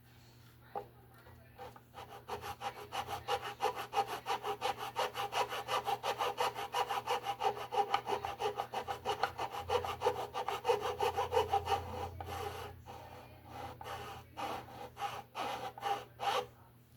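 Hand abrading of the mandolin's wood: rapid back-and-forth rasping strokes, about four to five a second, thinning to scattered strokes near the end, as old glue is worked off a surface.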